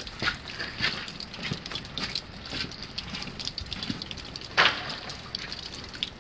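Small campfire crackling, irregular sharp pops and snaps with one louder crack about two-thirds of the way through.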